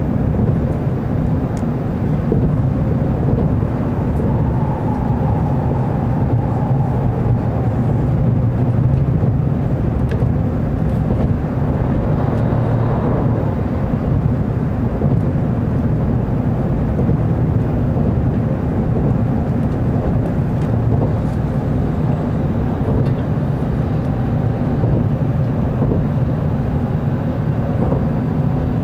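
Steady low rumble of an N700 Series Shinkansen train running, heard from inside the passenger cabin.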